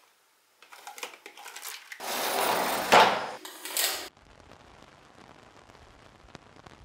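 Bangles and small metal trinkets clinking and rattling in a plastic drawer as a hand rummages through them. About two seconds in, a loud rushing noise takes over for about two seconds, swelling to a peak and cutting off suddenly, leaving a faint steady hiss.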